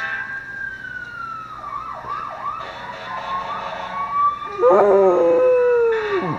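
An emergency siren wailing and yelping, its pitch sweeping up and down. A dog howls along with it: the loudest part, from about four and a half seconds in, sliding down in pitch as it ends.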